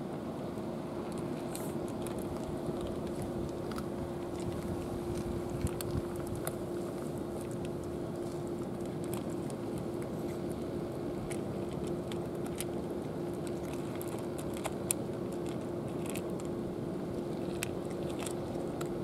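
Two cats crunching dry kibble from bowls: irregular sharp crunches and clicks. Under them runs a steady low hum.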